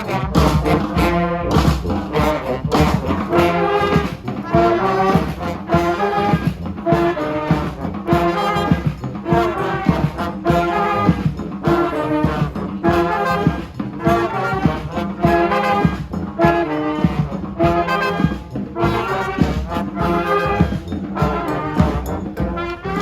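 Brass street band playing an afrobeat tune: trombones, trumpets and other horns play repeated riffs over a steady beat.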